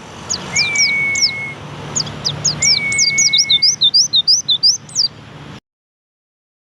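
White-eye (pleci) songbird singing a fast, twittering run of short, high, downslurred notes in quick bursts. A steady, lower whistled tone is held for about a second three times. All sound cuts off abruptly a little over five seconds in.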